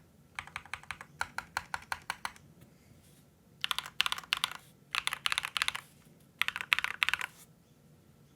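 Typing on an LK67 mechanical keyboard with Akko Rose Red switches: a string of separate keystrokes, a short pause, then three fast bursts of rapid typing that stop about a second before the end.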